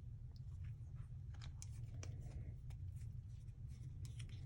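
Faint clicks and light scraping of small screws and parts being handled while blue Loctite is applied, over a steady low hum.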